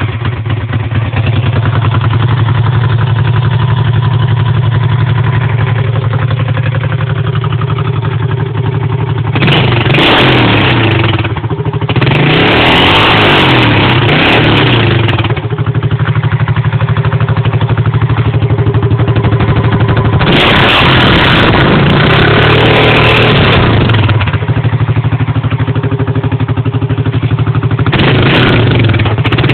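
Honda 350 Rancher ATV's single-cylinder four-stroke engine, fitted with a new exhaust pipe, idling steadily just after starting, then revved up several times and let back down to idle between blips.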